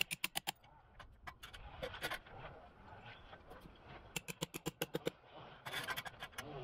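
Quick runs of sharp clicks and taps from the aluminium ladder guide rail of a chainsaw mill being fitted and adjusted on a log. One run of about six clicks comes right at the start and another of about eight follows about four seconds in.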